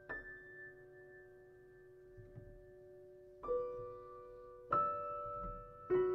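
Slow, sparse piano background music. A chord is struck right at the start and left to ring, then three more follow in the second half, each fading away.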